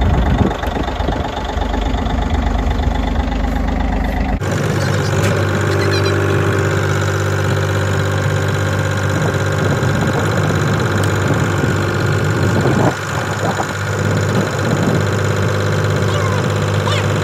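An engine running steadily at a constant speed. Its sound changes abruptly about four seconds in, then runs on evenly.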